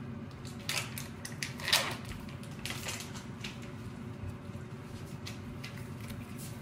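Parmesan cheese being grated on a long rasp grater: a handful of irregular scraping strokes, the loudest about two seconds in, over a steady low hum.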